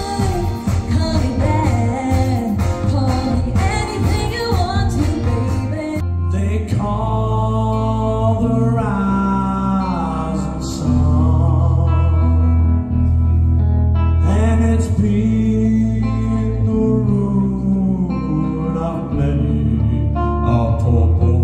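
Live pop music with singing from a stage show over a theatre sound system. About six seconds in it cuts abruptly to a different song, sung by a male singer over a strong, steady bass line.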